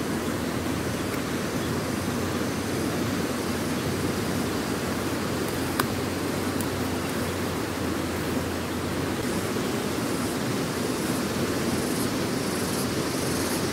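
Steady rush of a fast, muddy river running through rocky rapids, with a single sharp click about six seconds in.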